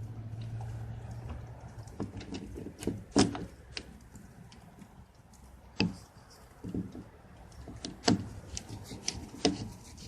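About half a dozen sharp clicks and knocks, spread unevenly, from hand work on a van's rear door handle, with a faint low hum in the first second or so.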